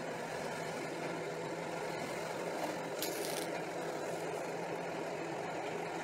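A vehicle engine running steadily at low revs, with a brief hiss about three seconds in.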